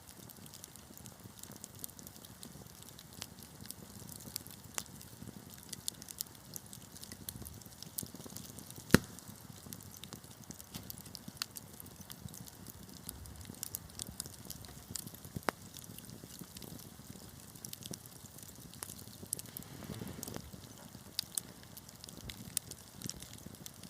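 Wood fire burning with a soft low hiss and scattered sharp crackles and pops. One pop about nine seconds in is much louder than the rest.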